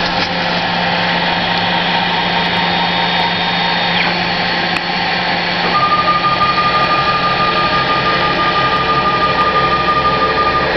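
CNC machine cutting a plastic part: a steady dense machining noise over a constant hum. A high whine glides down and stops about four seconds in, and a steady tone joins about two seconds later.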